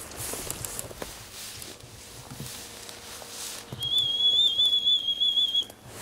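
A pea whistle blown in one trilling blast of about two seconds, starting a little past the middle: the signal announcing the start of the duck hunt. Before it, faint rustling of footsteps through tall grass.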